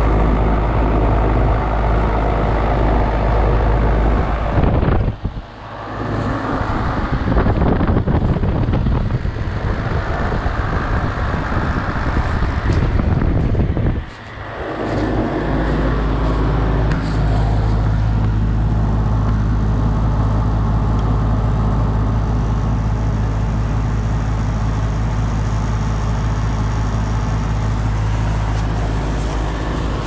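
1993 Janitrol 3.5-ton heat pump outdoor unit running in cooling mode: the compressor and condenser fan run steadily, with a low hum and a rush of air. The sound drops out briefly twice, about five and fourteen seconds in.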